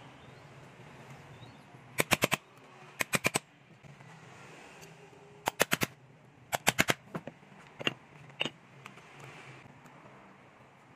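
Hammer striking a metal rivet setter to set the rivets of a brass clasp on a leather phone case: four quick bursts of about four sharp taps each, then three single taps.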